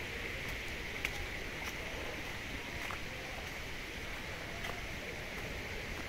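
Steady rush of flowing water from a stream, with a few faint clicks scattered through.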